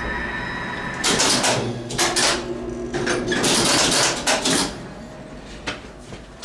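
Relay-logic controller of a 1954 Otis elevator clacking: a quick run of sharp relay and contactor clicks over about three and a half seconds as the car stops. This follows a steady hum from the elevator machinery that cuts off about a second in.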